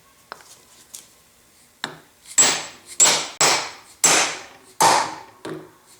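A hammer striking metal machine parts: about seven sharp blows over roughly four seconds, starting about two seconds in, each ringing briefly. A few light clicks come before them.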